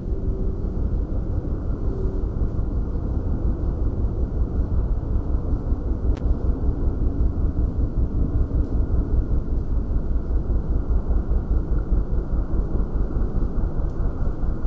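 Motorcycle ridden at low, steady speed: a dense low rumble of engine and wind noise.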